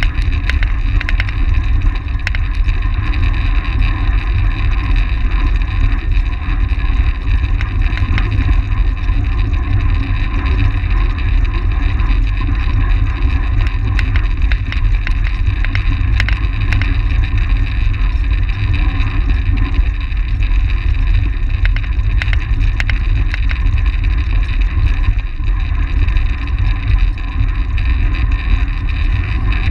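Steady, loud rush of wind over a bike-mounted camera's microphone as a track bike races at speed, with the hum of its tyres and drivetrain beneath. Scattered small clicks run through it.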